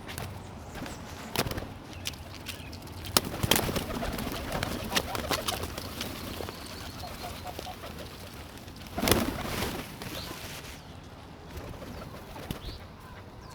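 Birds gathered for feeding, calling and cooing, with a few short knocks; the loudest knock comes about nine seconds in.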